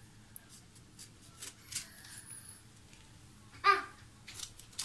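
Faint clicks and scrapes of a small knife scoring lemon halves over a wooden cutting board, so that salt can get into them. About three and a half seconds in there is one brief high-pitched vocal cry, the loudest sound.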